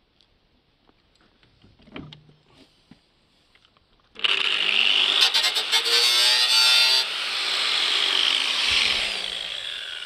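Angle grinder started about four seconds in, its motor whine rising as it spins up, then its disc grinding into the water heater's tin outer casing for about three seconds with a harsh metal-cutting noise. The disc is then lifted off and the motor winds down, its whine falling and fading.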